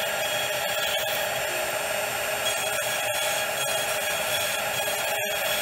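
CNC router spindle running with a steady high whine while its end mill profile-cuts around wooden pegs in a block of wood. The sound breaks off for an instant about three seconds in and again near the end.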